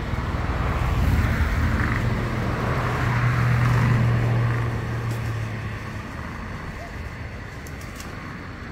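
A motor vehicle passing on the road: a steady low engine hum with a rush of noise grows louder about a second in, holds for a few seconds, then fades away.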